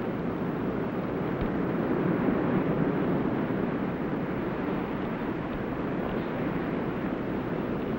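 Steady rushing noise of surf and wind on a beach, swelling a little about two seconds in.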